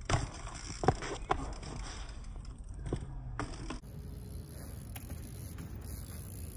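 A few sharp knocks and clanks from a BMX bike being handled after a fall, four in the first three seconds. Then a steady low rumble of BMX tyres rolling on asphalt.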